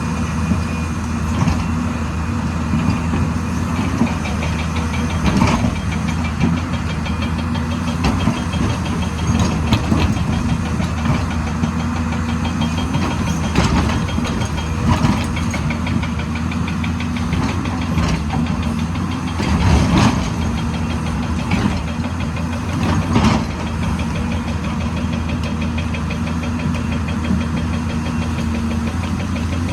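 An excavator's diesel engine running steadily, with several loud clanks and knocks scattered through.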